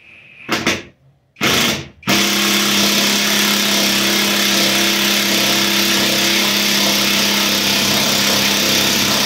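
Red cordless drill/driver driving a bolt for a wall bracket: two short pulls of the trigger, then the motor running steadily at one speed for the rest. The user judges the drill not strong enough for the bolt.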